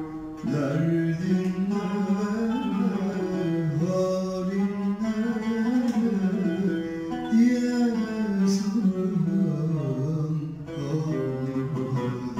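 Male solo voice singing a Turkish classical song in hicaz makam in a long, ornamented line, accompanied by an oud. The voice stops about ten and a half seconds in, leaving the oud playing on its own.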